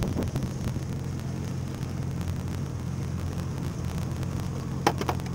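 Boat engine idling, a steady low hum. Two quick knocks come near the end.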